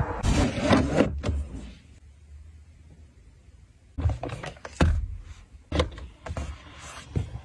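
Handling noise, then a series of sharp clicks and knocks as a hand works the storage compartment and its lid in the rear centre console of a BMW 760Li. A rustling, knocking stretch comes in the first second or so, then a near-quiet pause, then about five separate clicks and knocks from about four seconds in.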